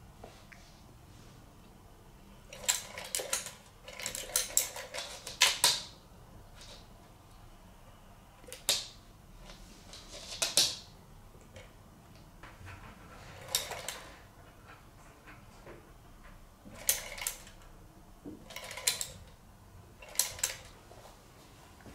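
Motorized feather cat toy running in short bursts, its spinning feather wand and gears giving a clicking rattle that starts and stops about nine times.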